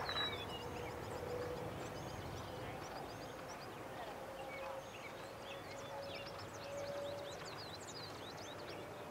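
Outdoor ambience of many small birds chirping throughout, over a faint steady hum that slowly rises a little in pitch.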